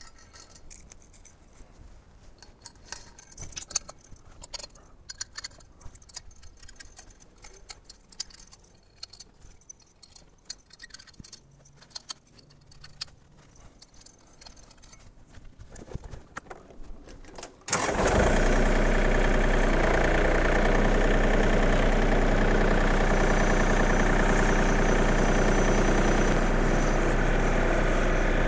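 Scattered metal clinks and rattles as steel pins are fitted into the tractor's fence-roll loader attachment. About eighteen seconds in, the John Deere 2032R compact tractor's three-cylinder diesel engine starts and runs steadily.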